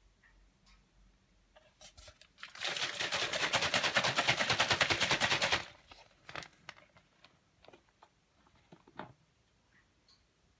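A rapid, even rattle of clicks, about three seconds long, starting a couple of seconds in, with a few scattered light clicks and handling knocks before and after it.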